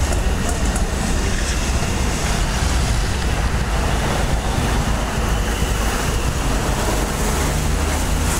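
Wind rumbling on the microphone over steady street traffic noise.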